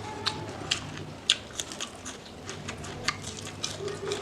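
Close-up eating sounds: a person chewing with irregular wet mouth clicks and smacks, several a second, one louder about a third of the way in.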